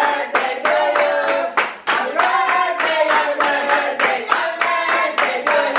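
A group of people singing a song together while clapping along in a steady beat, about three to four claps a second.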